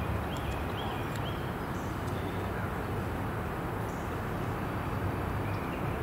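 Steady low outdoor rumble with a few short, high chirps from a bird: four in quick succession in the first second and a half, and one more near the end.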